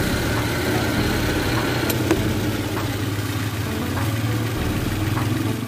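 Toyota Avanza's 1.5-litre VVT-i four-cylinder engine idling steadily, warmed up and holding normal temperature after a thermostat replacement.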